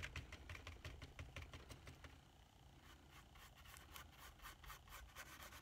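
Faint, quick scratchy ticks of a paintbrush dabbing and stroking paint onto a canvas, over a low steady room hum.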